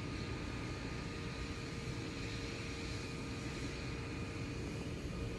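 Steady droning hum with a faint steady tone, from a stopped electric train's auxiliary machinery (blowers and compressor) idling at the platform.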